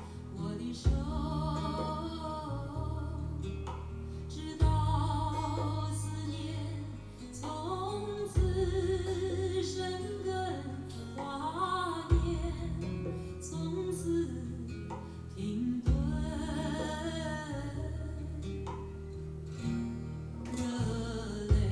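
A song played back over a stereo pair of Apple HomePod speakers: a voice singing a melody over guitar and deep bass notes, the bass entering afresh with a sharp onset about every four seconds.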